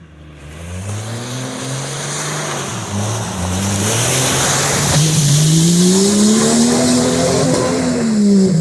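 Off-road 4x4's engine revving hard under load as it drives into a water-filled mud hole, its pitch swinging up and down and then climbing for a few seconds before it drops near the end. A steady hiss of splashing water and mud builds under the engine.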